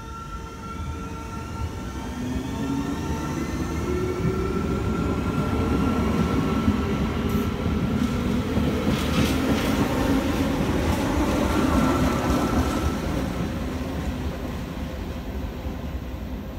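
NS Sprinter electric multiple unit pulling away and passing close by, its traction motors whining and rising in pitch as it accelerates. It grows louder as it goes past, with a run of wheel clicks over rail joints in the middle, then fades as it draws away.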